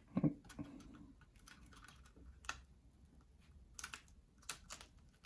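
Small plastic and metal laptop parts being handled during disassembly: a dull knock near the start, then a few scattered light clicks and taps.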